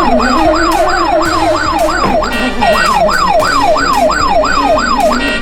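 Electronic police siren in a fast yelp, falling wails repeating about three times a second, breaking off briefly about two seconds in.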